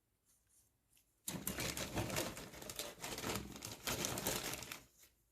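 Plastic model-kit parts sprues being handled, a dense crinkling and clattering that starts just over a second in and lasts about three and a half seconds.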